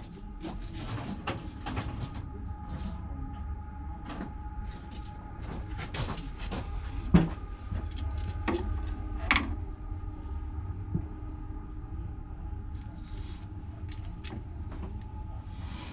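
Someone rummaging among hand tools for a screwdriver: scattered clicks, knocks and clatter, the sharpest a knock about seven seconds in, over a steady low hum.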